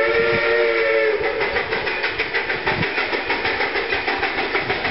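Black River and Western steam locomotive #60's whistle sounding a held chord of several tones that ends about a second in. It is followed by the locomotive's exhaust chuffing in a steady rhythm as it moves.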